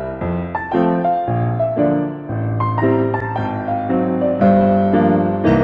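Background piano music: soft chords struck one after another, each ringing briefly before the next.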